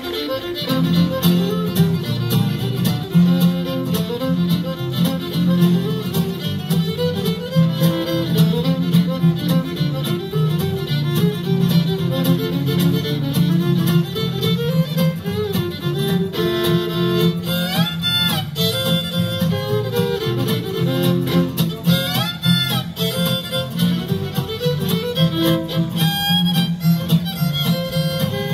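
Fiddle playing a bluegrass fiddle tune, backed by two strummed acoustic guitars keeping a steady rhythm. The fiddle slides up into notes several times.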